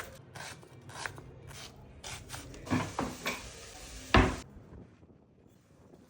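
Kitchen knife cutting on a wooden chopping board: a quick run of light cuts, then a few heavier knocks, the loudest a single sharp chop about four seconds in.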